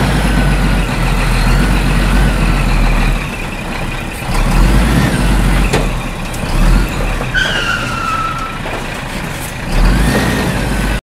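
A heavy truck running with a steady low engine rumble, with a brief falling squeal about seven seconds in, as a truck sound effect over a plastic toy cargo truck being pushed along.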